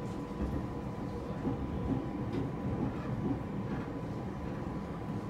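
JR East E231 series 1000 commuter train rolling slowly into a station platform, heard from inside the car: a low rumble of wheels on rail, a steady faint high tone and a few light clicks.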